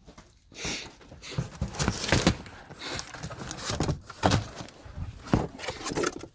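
Items being handled and shifted while searching through stock: irregular knocks and short rustles, a few of them sharper than the rest.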